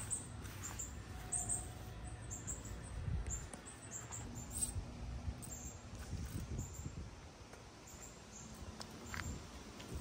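Faint outdoor ambience: small birds chirping in short, high notes again and again, over a low rumble, with a couple of faint clicks.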